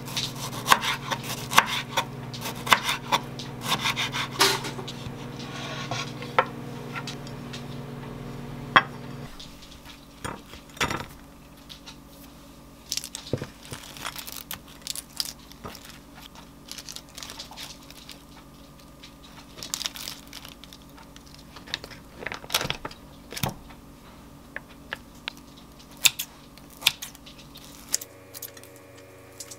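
Kitchen knife cutting a tomato on a wooden cutting board, with sharp taps of the blade on the board, over a steady appliance hum that cuts off about nine seconds in. Then come scattered clicks, light rustling of lettuce being torn and laid on toast, and a glass plate and dishes being handled.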